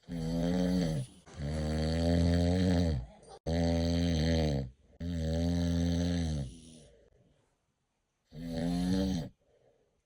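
A man snoring loudly: five long snores, each a second or more, with a buzzing pitched tone that dips near the end of each, and a longer pause before the last one.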